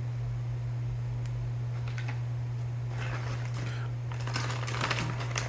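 Small clicks and scratching from hands working small parts and tools at a bench, sparse at first and busier in the second half, over a steady low hum.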